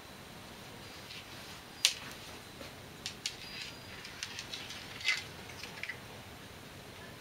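Scattered light clicks and taps on a wooden floor as a cat plays with a string toy, with one sharper tap about two seconds in and a quick run of small ticks after it.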